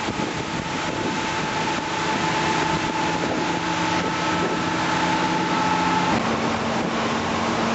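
Boat engine running steadily under heavy wind on the microphone and a broad rush of water. Its hum changes pitch about six seconds in.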